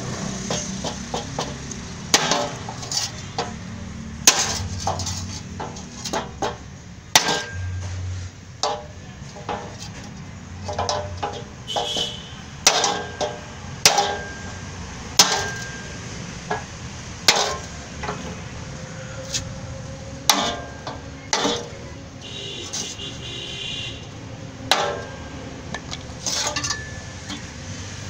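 Hammer blows struck through a wooden block onto a car's steel front bumper reinforcement beam, knocking the dented beam straight. About twenty irregularly spaced strikes, a few leaving a short metallic ring.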